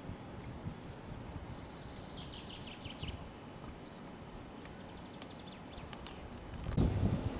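Outdoor ambience with a small bird singing a short trill of rapid repeated high notes about two seconds in. A few faint clicks follow, and there is a brief low rumble near the end.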